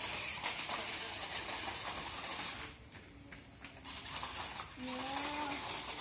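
Small electric motor of a toy RC rock crawler whirring steadily, cutting out for about two seconds in the middle, then running again.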